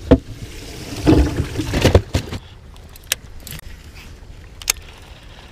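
Handling noise of a person moving about the deck of an aluminum jon boat: a sharp knock right at the start, then thumping footsteps and clatter about a second in, and a few light clicks later on.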